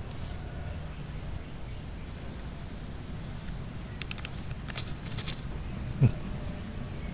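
Plastic seed packet crinkling and tapping in a quick run of crisp clicks about four to five seconds in, as green lettuce seeds are shaken out into a palm, over a steady low outdoor rumble. A short falling squeak comes just after six seconds.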